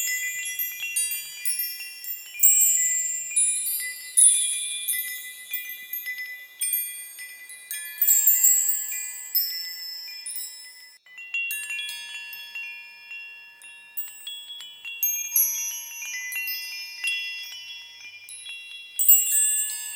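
Small high-pitched bells chiming at random, each strike ringing on and overlapping the next, with no steady beat; the strikes thin out for a quieter stretch in the middle.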